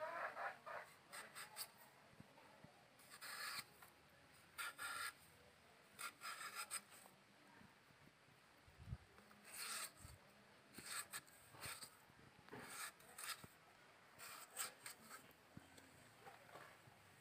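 Potato being peeled and cut against the fixed curved blade of a boti, a string of short, irregular scraping strokes with brief pauses between them.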